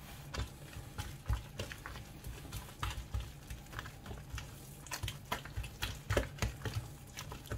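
A gloved hand mixing thick carrot cake batter by hand in a ceramic bowl: irregular squishing and soft clicks, a few to several a second.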